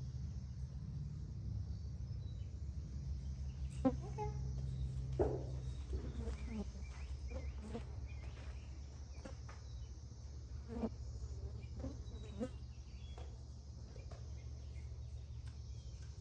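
Steady low buzzing of flying insects, with scattered short chirps and a few sharp knocks.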